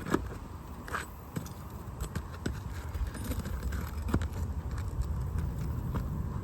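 A hand shingle-removal tool prying and scraping under asphalt roof shingles, breaking their seal strips, with scattered sharp clicks and crackles over a low rumble of wind on the microphone.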